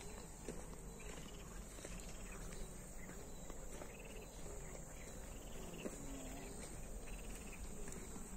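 Insects chirring in a steady, high-pitched drone, with light footsteps on a grassy dirt path.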